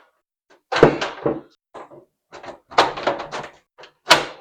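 A PC case side panel being fitted onto the case: a string of knocks and clunks, the loudest about a second in and another near the end.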